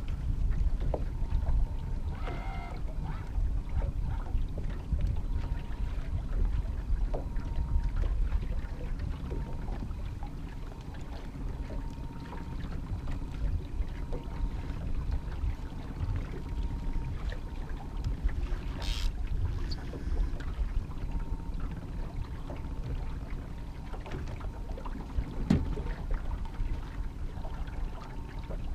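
Steady low rumble aboard a small fishing boat trolling on a lake, wind and water noise with a faint on-and-off hum. Occasional knocks from rods and gear being handled in the boat, and a brief high squeak about two-thirds of the way through.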